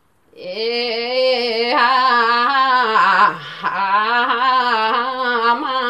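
A woman singing a Limbu palam folk song solo, without accompaniment, in long held notes with a wavering pitch. She comes in about half a second in and drops lower and softer briefly in the middle before rising again.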